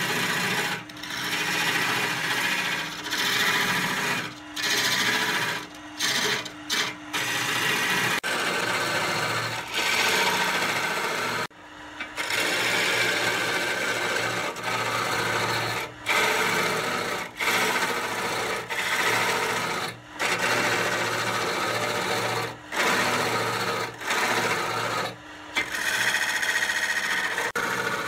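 Wood lathe running while a hand-held turning tool cuts and scrapes the spinning pine, a steady rasping hiss over a faint motor hum, cut off briefly many times.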